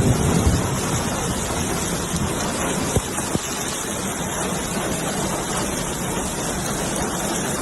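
Steady rushing noise of a heavy downpour and running floodwater, with wind on the microphone. A low rumble dies away in the first half second, and two faint knocks come about three seconds in.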